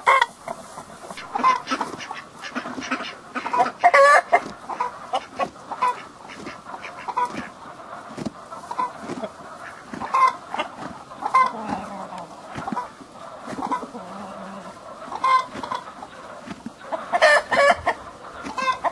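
Chickens clucking and cackling in a continual string of short calls: a hen excited as if she had just laid an egg, with the rooster joining in. The calls grow louder and thicker near the end.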